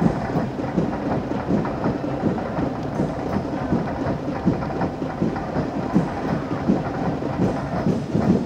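Steady din of a football stadium crowd, a dense mass of voices and noise with no single clear sound standing out.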